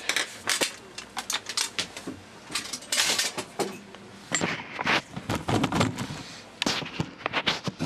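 Metal parts and a screwdriver handled on a workbench: a run of irregular clicks, clinks and knocks, busiest a little past the middle.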